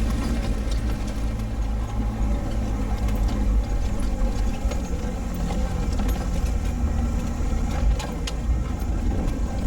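A motor vehicle's engine running steadily on an off-road drive, with light scattered rattles and a couple of sharper knocks about eight seconds in.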